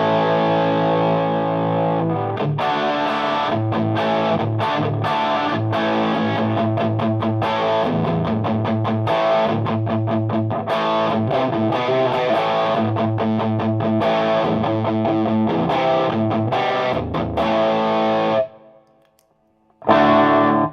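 Electric guitar (PRS S2 Custom 24) through a Ramble FX Marvel Drive overdrive pedal into a Marshall JVM amp's clean channel, playing a held distorted chord and then choppy, stop-start riffing. It cuts off about eighteen seconds in, and after a short pause one more chord is struck near the end.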